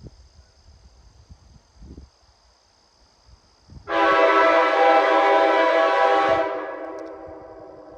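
Nathan Airchime K5L five-chime locomotive horn, built up from parts, sounding one loud blast of about two and a half seconds: a steady chord that starts abruptly a few seconds in, then dies away over about a second and a half.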